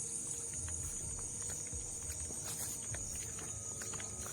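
Crickets chirping in a steady high chorus, with a few faint clicks.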